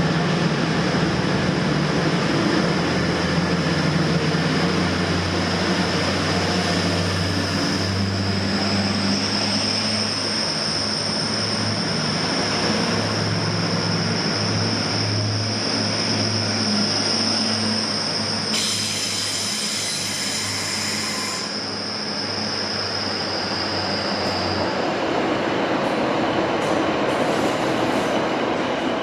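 A train moving through the station platforms with a steady, high-pitched wheel squeal over a low running drone; a second, higher squeal joins for several seconds mid-way, and the squeal stops about 25 s in.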